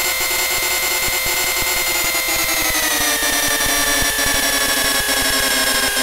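CNC lathe simulator's machining sound effect: a steady whining spindle hum with a fine rapid crackle of cutting. Its pitch drops about two to three seconds in and keeps sinking slowly, as the spindle speed falls while the tool cuts outward to a larger diameter.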